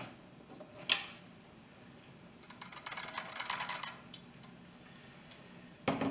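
Electric pressure cooker's stainless lid being unlocked and taken off: a couple of sharp clicks from the lid, a second or so of light metal scraping as it twists open, then a knock near the end as the lid is set down on the table.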